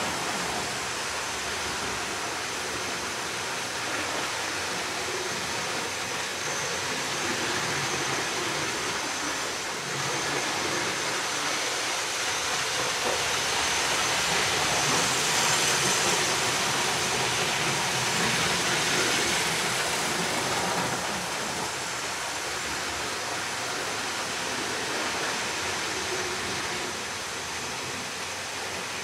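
Hornby OO gauge APT model train running on the layout with its ringfield motor freshly serviced: a steady, even whirr of motor and wheels on track. It grows louder from about 12 seconds in as the train passes close, and drops back a little after about 21 seconds.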